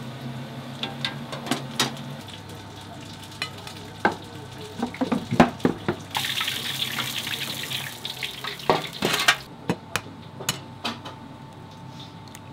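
Kitchen work in a small restaurant: scattered clinks and knocks of dishes and utensils, with a steady hiss of running water or sizzling that starts about six seconds in and cuts off about three seconds later.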